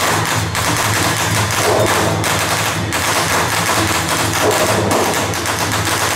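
A string of firecrackers going off in a dense, continuous rattle of bangs.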